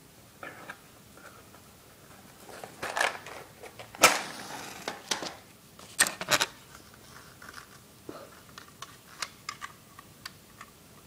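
Matches being struck on a matchbox: a few scraping strokes, then a sharp strike about four seconds in that flares with a short hiss, and more sharp strikes about two seconds later, followed by light clicks of handling.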